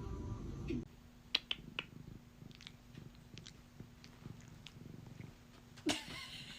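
A cat purring softly, with a few faint small clicks. It follows under a second of background music that cuts off abruptly, and a louder sound comes near the end.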